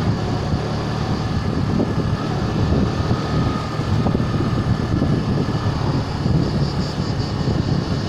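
Bajaj Boxer BM 125 X motorcycle's single-cylinder four-stroke engine running steadily as the bike rides along, with road and wind noise.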